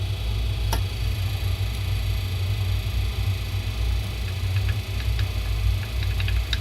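Mazda 6 (GG) front suspension knocking over a steady low rumble: one sharp click about a second in, then a run of light clicks near the end. The owner takes the knock for a worn ball joint and dead rubber bushings (silent blocks).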